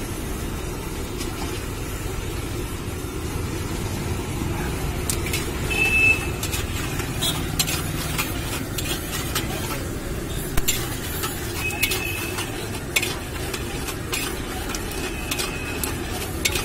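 Flat metal spatula stirring peanuts frying in a little oil in an iron kadai. From about five seconds in it scrapes and clicks against the pan, with a few short squeaks of metal on metal. Under it runs a steady low rumble.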